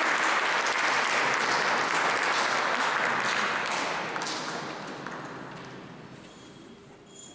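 Audience applauding, the clapping loud at first and then thinning and dying away over the last few seconds.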